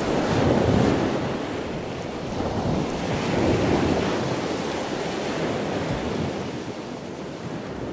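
Ocean waves washing, with wind, swelling about a second in and again about halfway through.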